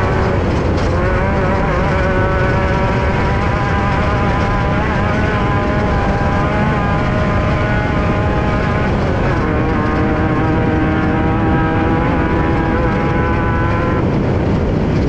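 Onboard sound of a Class 5/1600 off-road race car at racing speed: its air-cooled 1600 cc VW flat-four runs hard over constant heavy noise from the car. The engine note drops once about nine seconds in, and fades into the noise near the end.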